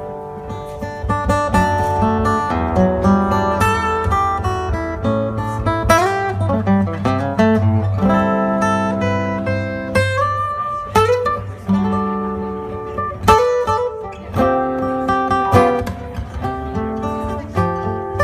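Steel-string acoustic guitar played solo: a picked melody ringing over bass notes, with a few sliding notes along the way.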